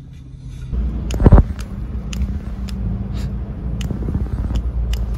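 A car heard from inside the cabin: a steady low engine hum, then about a second in a much louder low rumble with one heavy thump, which carries on with scattered sharp clicks.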